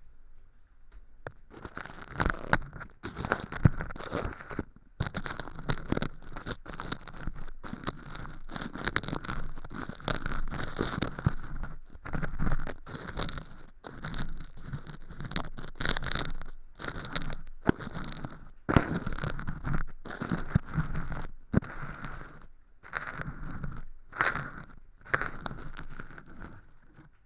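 Ear pick scraping and crackling through thin, crispy, sawdust-like flakes of mock earwax inside a binaural microphone's ear, in quick strokes broken by short pauses. It starts about a second and a half in.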